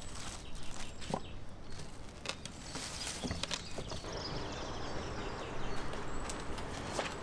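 Plastic wrap crinkling and rustling as it is cut and pulled off a whole frozen salmon, with scattered clicks and knocks in the first few seconds. After that comes a steadier outdoor background with faint bird chirps.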